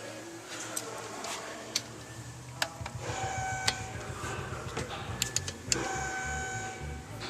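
Tool work on the brake caliper bolts: sharp metallic clicks, with two runs of a steady mechanical whine about a second and a half long, the second starting near six seconds in.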